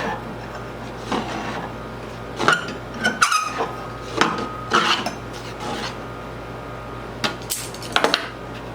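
Small metal parts and tools clinking and clattering as they are handled, in two bunches of sharp clicks, a few leaving a brief metallic ring, over a steady low electrical hum.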